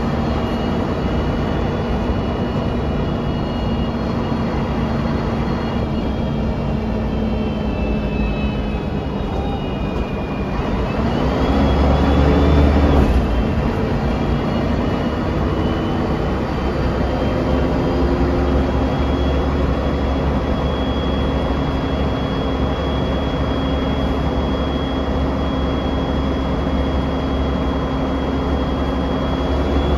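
Inside a 1999 Mercedes-Benz O405NH city bus on the move: the engine and drivetrain whine sinks slowly in pitch for about ten seconds, then climbs as the bus picks up speed. After that comes a strong deep rumble with a steady high whine over it.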